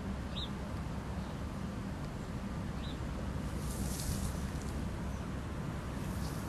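Two brief high peeps from mallard ducklings, about half a second in and again about three seconds in, over a steady low rumble, with a short hiss a little before four seconds.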